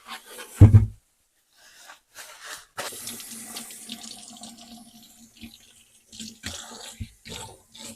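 Kitchen tap water running into a sink as mangoes are washed under it, splashing on and off, with a heavy thump about a second before the water starts.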